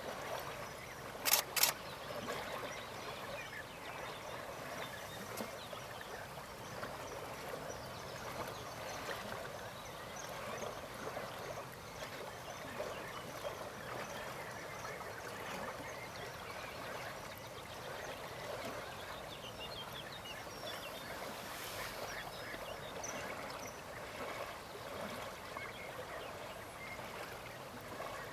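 A dense, continuous outdoor chorus of many overlapping animal calls, with two sharp clicks close together about a second and a half in.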